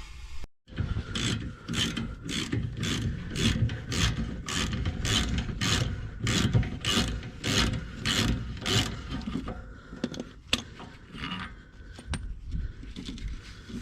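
Socket ratchet clicking in a steady rhythm of about three clicks a second as the lower rear shock-absorber bolt is undone. The clicking stops about nine seconds in, followed by a few scattered knocks.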